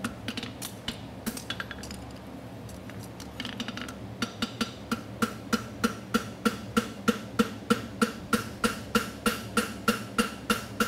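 Hand hammer striking a red-hot steel horseshoe on the horn of an anvil, with a ringing tone at about three blows a second; the blows pause for about two seconds near the start, then resume steadily. The shoe is being forged into a front double bevel shoe.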